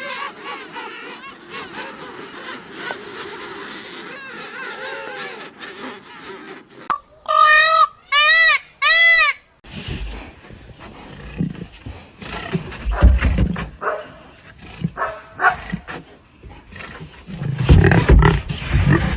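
A run of farm-animal calls. Softer wavering calls come first, then three loud, short calls with a rising-and-falling pitch about halfway through. Low grunting and thumping noises follow to the end.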